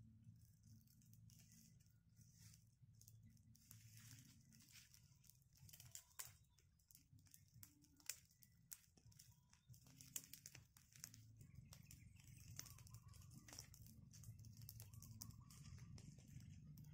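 Faint, scattered crackling and rustling of dry leaves and twigs being handled, with a few sharper snaps about six, eight and ten seconds in.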